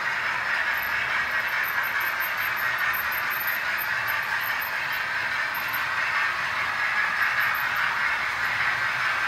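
OO gauge model trains running on the layout: a steady, even running noise of the motors and metal wheels on the rails.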